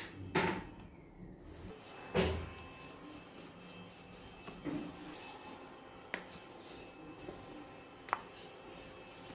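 Thin wooden rolling pin rolling out a round of dough on a floured counter, with two dull knocks in the first couple of seconds and a few lighter taps later.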